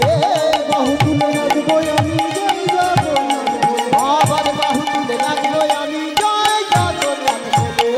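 Kirtan ensemble playing an instrumental interlude: quick hand-drum strokes and bright metal cymbal strikes over a held melody with sliding notes.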